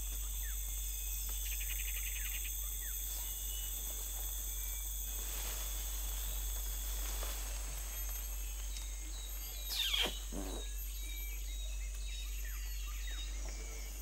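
Rainforest ambience: a steady high drone of insects with scattered short bird chirps, and a brief rapid buzzing trill early on. About ten seconds in comes one louder call that falls steeply in pitch.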